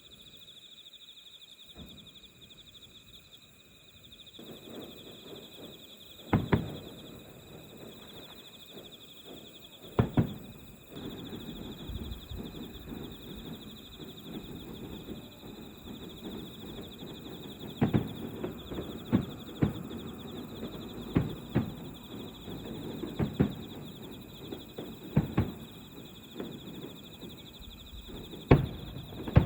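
Distant fireworks shells bursting: about ten sharp bangs, each trailing off in a rolling echo, the loudest near 6 and 10 seconds in and again near the end, over a low continuous rumble. Behind them, steady chirping of night insects such as crickets.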